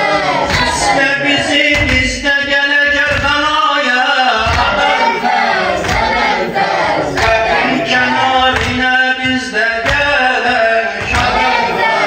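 A male eulogist singing a mourning lament in long, held, melismatic lines, with a crowd of male voices chanting along, over a regular beat of thuds.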